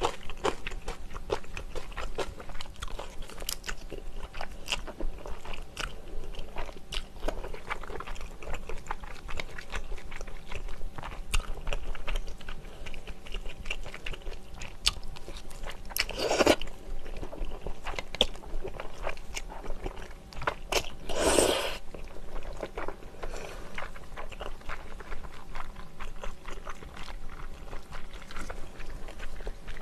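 Close-miked chewing of thick, chewy Chinese glass noodles in soy-braised chicken sauce: steady wet mouth sounds full of small clicks, with two louder slurps about halfway through.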